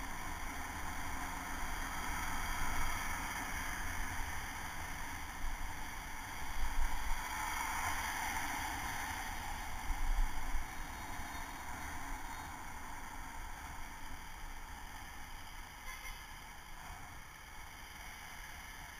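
Wind noise rushing over a helmet-mounted camera on a moving bicycle, mixed with the hum of passing street traffic. Louder low gusts of rumble come about six to seven seconds in and again around ten seconds, and the noise eases off gradually in the second half.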